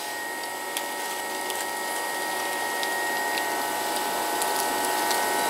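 Steady machine-like hum carrying a few held whining tones, growing slowly louder, with a few faint ticks over it.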